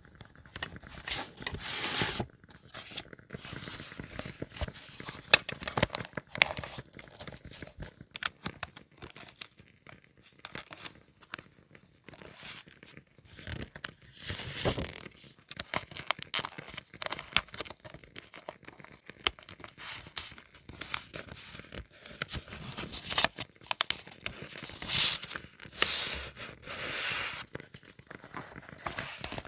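Paper being handled at close range: repeated rustling, crinkling and tearing, mixed with small clicks and taps. The louder tearing swishes come about two seconds in, around the middle and near the end.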